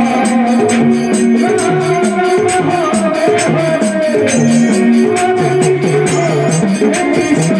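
Devotional kirtan music: a keyboard playing a melody in held, stepwise notes over a steady rhythm, with jingling, shaker-like percussion ticking several times a second.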